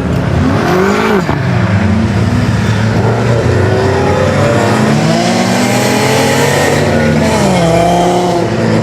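Car engine revving hard, its pitch rising and falling, with tire squeal and noise over it.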